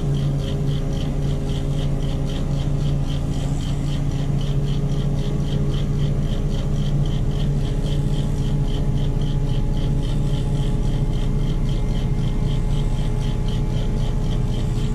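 Mobile crane's diesel engine and hoist running steadily under load, a strong low hum with a regular high ticking about three times a second.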